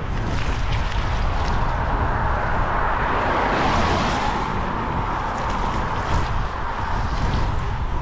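Wind buffeting the bike-mounted camera's microphone over the hiss of bicycle tyres rolling on a wet road; the hiss swells and fades about halfway through.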